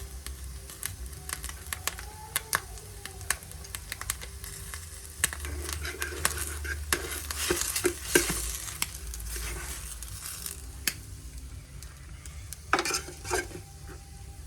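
Food sizzling in a frying pan while a utensil stirs it, with many sharp clicks and scrapes against the pan, a louder cluster about eight seconds in and another near the end.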